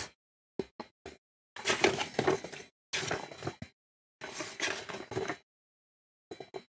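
Plastic snack packaging crinkling and being handled in three bursts of about a second each, with a few short clicks of handling before and after.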